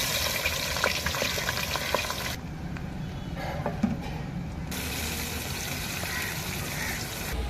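Cooking noise from a pan: a steady watery hiss with scattered sharp clicks of a utensil. The high hiss drops away for about two seconds in the middle.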